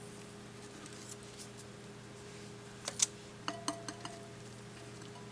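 Quiet room tone with a steady low hum, and a few light clicks and taps about three to four seconds in as glitter is worked onto a stainless steel tumbler by hand.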